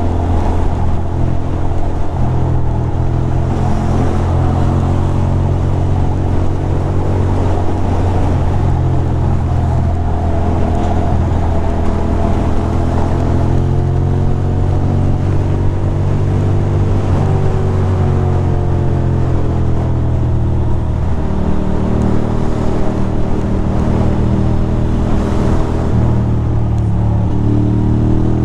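A 2006 Ducati Monster 620's air-cooled L-twin engine running steadily at cruising speed, heard from the rider's seat. Its pitch dips and rises slightly a few times as the throttle changes.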